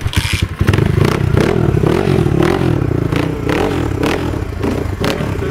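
Avantis enduro motorcycle engine running, with a quick stuttering beat at first, then steady with the revs rising and falling, and scattered clatter.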